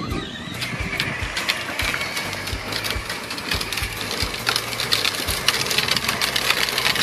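Battery-powered ride-on toy Jeep driving on concrete: its electric drive motors and gearboxes whirring, with its hard plastic wheels clattering over the pavement in a steady run of small clicks.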